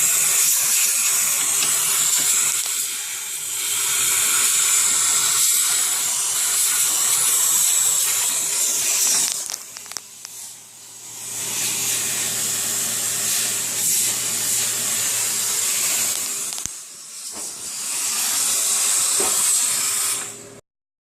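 A loud, steady hissing jet, with a faint motor hum beneath, blown onto the ice built up in the freezer to melt it off. It eases off briefly about three, ten and seventeen seconds in, then cuts off suddenly near the end.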